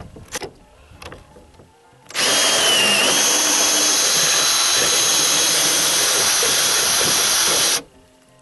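Hand drill spinning a 35 mm Forstner bit through a Kreg concealed hinge jig, boring a hinge cup hole into a wooden cabinet door. It starts about two seconds in and runs steadily for about five and a half seconds, its whine sagging briefly as the bit bites in, then stops abruptly.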